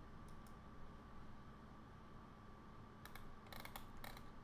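Quiet room tone with faint clicks at a computer, a handful of them close together starting about three seconds in.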